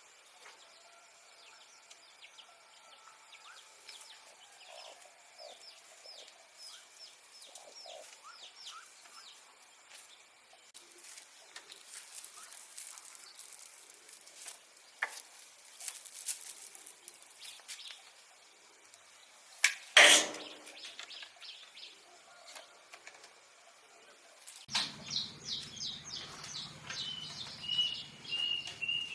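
Small birds chirping and calling, with a single loud knock about two-thirds of the way through. Near the end a low hum comes in and a bird gives a quick run of short repeated notes.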